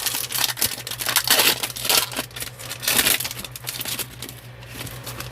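Foil trading-card pack wrapper being torn open and crinkled by hand: a dense, irregular run of crackling.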